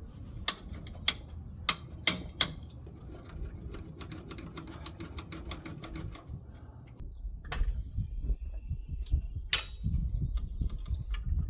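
Hand tools working on a motorcycle's exhaust: five sharp metallic clicks, then a run of lighter, even clicks for a few seconds, and a hiss lasting about two seconds.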